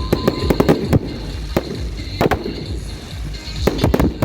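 Fireworks going off: sharp bangs and pops in irregular clusters, with a dense run of them near the end.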